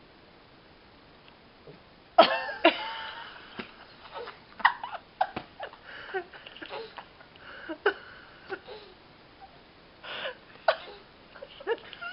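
A baby's mouth noises: a loud squeal about two seconds in, then a run of short, sputtering pops and squeaks, the 'fart noises' a baby makes with her lips.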